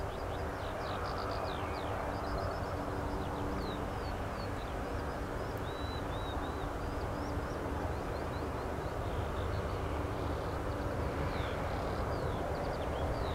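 RAF Sea King helicopter flying at a distance, a steady drone with a low hum, while small birds chirp repeatedly over it.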